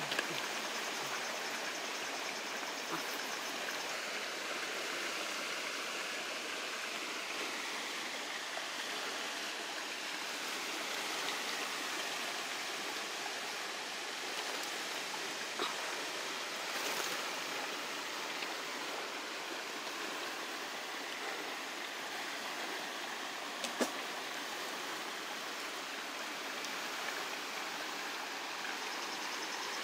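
Steady, even rushing noise like running water, with a few faint clicks.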